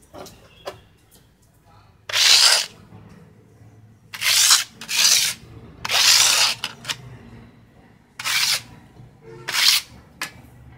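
A hand scraper drawn across the top of a chalk mould in six short, loud strokes, scraping the excess plaster off the filled mould. A few small clicks come just before the first stroke.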